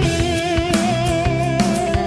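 Rock music with an electric guitar holding a sustained lead note with vibrato over a drum kit, its loudness held even, run through a DBX 166 compressor/limiter set to a 2:1 ratio with peak limiting.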